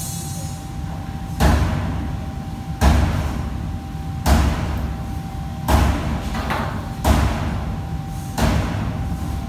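Heavy cleaver chopping on a chopping block: six hard blows, about one every one and a half seconds, each with a short trailing echo, over a steady hum.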